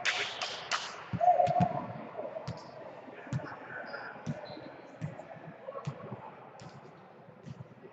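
Sounds of indoor volleyball play: scattered sharp knocks and clicks from the ball and players' feet on the hard court, a few brief high squeaks, a noisy burst at the start and a short voice about a second and a half in.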